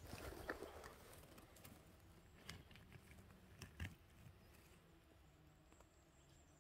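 Faint rustling of moss and dry twigs on a forest floor as a person moves and handles the litter, with a few light snaps about two and a half and about four seconds in.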